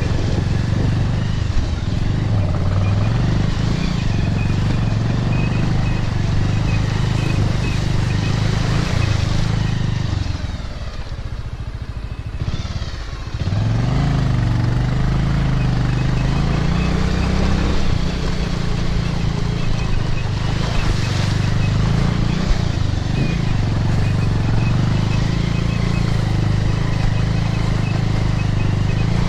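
Motorcycle engine running as the bike rides along; about ten seconds in it drops back quieter for a few seconds, then picks up again with a rising pitch.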